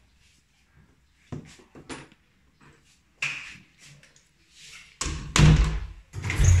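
Interior door being handled and opened: a few light clicks from the doorknob, then loud bumps and rubbing near the end as the door swings open.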